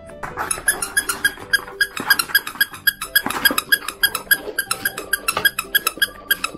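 A plush squeaky toy squeezed over and over, giving quick, even squeaks at one pitch, about six a second.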